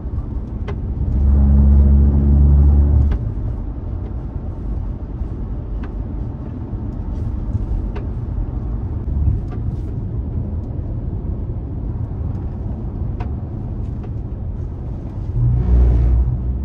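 Steady road and engine noise inside a moving car's cabin. About a second in and again near the end it swells into a louder, deeper rumble for a second or two.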